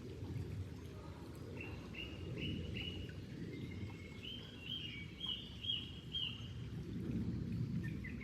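Water flowing with a steady low rushing sound, while a songbird sings a series of short, repeated high notes over it in the middle of the stretch, with another quick phrase near the end.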